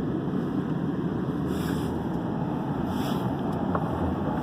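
Steady rumble of a car's engine and tyres on a snowy road, heard from inside the moving car, with two brief hisses about a second and a half and three seconds in.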